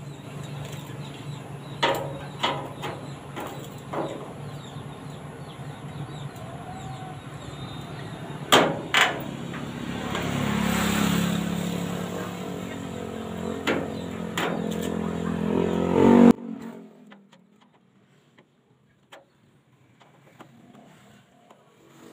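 A motor engine running steadily, swelling briefly in the middle and cutting off suddenly about sixteen seconds in. Over it come scattered sharp metal clanks and clicks as a hand tool works on the steel tubing of a sidecar frame.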